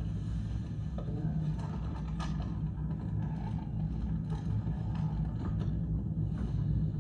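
Low, steady rumble with a few faint scrapes, from a projected film's soundtrack as heard in the room.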